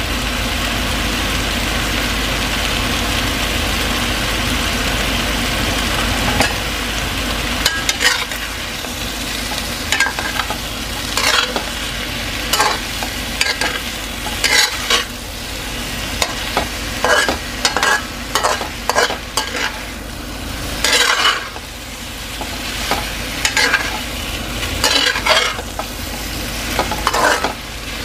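Chicken pieces sizzling as they fry in a stainless steel pan. After several seconds a cooking utensil starts stirring them, scraping and knocking against the pan in many irregular strokes over the sizzle.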